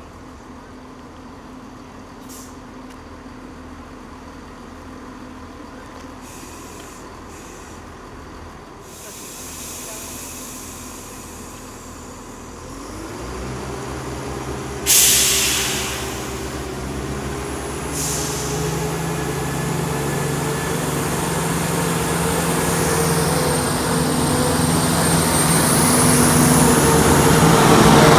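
Diesel train at a station: after a quiet start, its engines start to run up about halfway through and grow steadily louder, with a sharp burst of air-brake hiss soon after and a second, smaller hiss a few seconds later, typical of a train pulling away.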